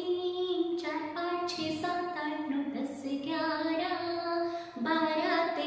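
A woman singing a melody in held notes.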